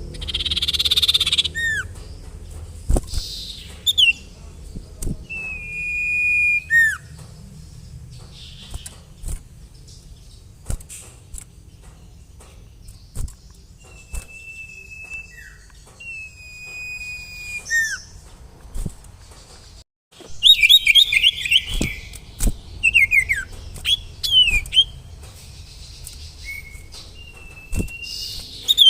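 Common iora (sirtu) calling: drawn-out level whistles and short down-slurred notes, with a few harsh raspy calls. After a brief gap about two-thirds through comes a fast run of chattering notes.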